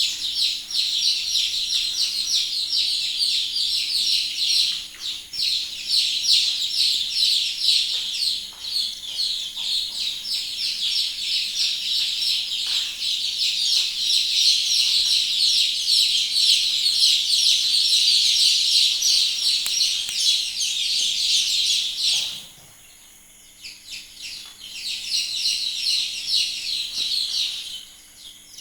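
A crowd of native chicken chicks peeping continuously, many rapid high chirps overlapping into a dense chatter. It cuts off abruptly about 22 seconds in, then picks up again before dropping away near the end.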